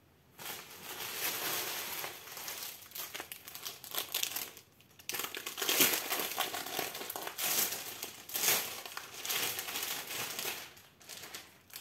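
Packaging crinkling and rustling as it is handled while a diamond-painting kit is taken out, with short breaks about five seconds in and near the end.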